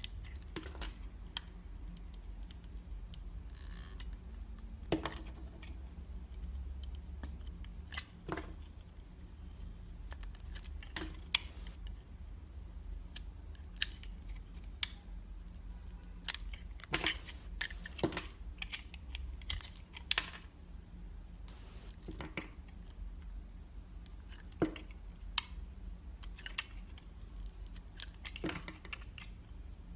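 A knife cutting through hard, dry soap, crunching and cracking in irregular sharp snaps, some louder than others. A steady low hum runs underneath.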